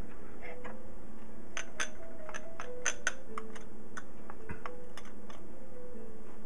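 Light, irregular clicks and taps of a metal spoon and a small bowl against a stainless steel saucepan as onion powder is tipped into tomato sauce. Faint background music underneath.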